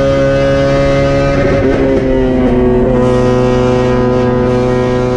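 Honda K24 four-cylinder engine of a Civic race car heard from inside the cabin, running at a steady engine speed with an even drone. About two seconds in it turns rough for a moment, then settles at a slightly lower pitch.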